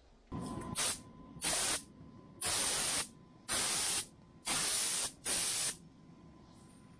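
Compressed-air gravity-feed spray gun firing about six short bursts of hissing spray, each under a second, as 2K primer is test-sprayed onto newspaper to check the spray pattern.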